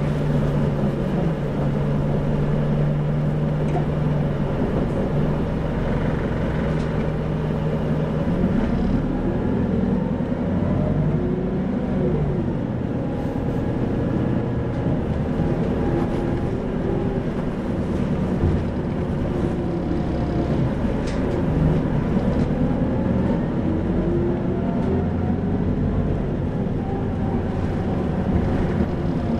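Engine and drivetrain of an Isuzu 2PG-LV290N3 city bus (Isuzu Erga, four-cylinder turbo diesel) as the bus runs. The engine note holds steady for the first eight seconds or so, then rises and falls repeatedly with speed and gear changes.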